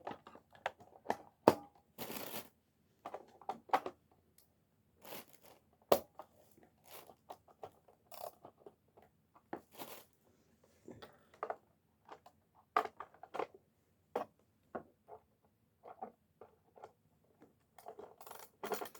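Hands handling a toy robot's plastic body while batteries are fitted: irregular sharp plastic clicks and knocks, with a few short scraping rustles.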